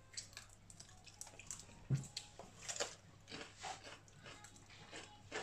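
Close-up eating sounds of people chewing and peeling cooked shrimp and crab by hand: scattered small wet clicks and crackles of shell, with a soft thump about two seconds in.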